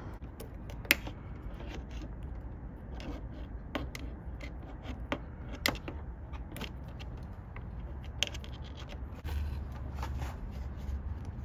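Tesa tape being unrolled and wrapped by hand around a wire connection: intermittent scraping and rustling with scattered small clicks, over a low steady hum.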